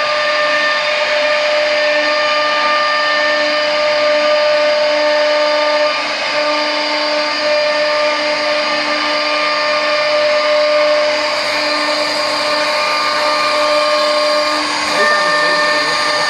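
Wood CNC router's spindle running at steady speed with a constant whine, its bit carving a relief into a wooden board over a hiss of cutting.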